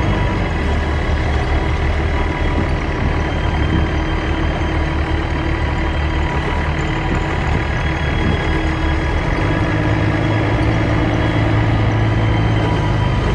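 A motor vehicle's engine running steadily, its low hum stepping up in pitch about nine seconds in.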